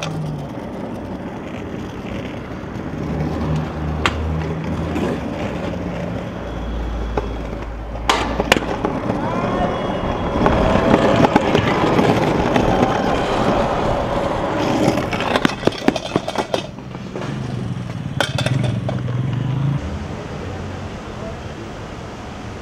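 Stunt scooter wheels rolling, growing louder around the middle as the rider passes close, with several sharp clacks of the scooter hitting the ground.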